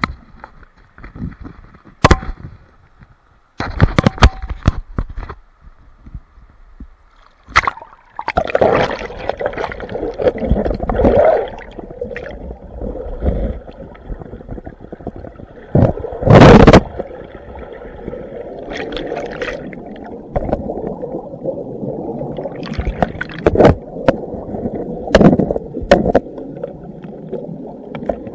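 Splashing as a snorkeler ducks under, then the muffled sound of a river heard from underwater: a steady low rush with gurgling bubbles. Sharp knocks break it every few seconds, with one louder burst of bubbling near the middle.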